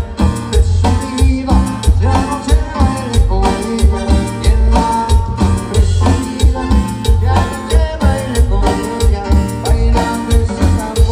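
Cumbia band playing, with a steady, heavy bass beat under the melody instruments.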